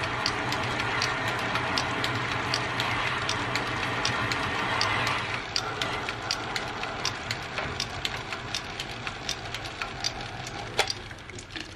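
Small metal lathe running while the cutting tool turns down the Morse taper shank of a drill bit: a steady motor hum with regular sharp ticking, about two or three a second, and a cutting hiss that eases about halfway through.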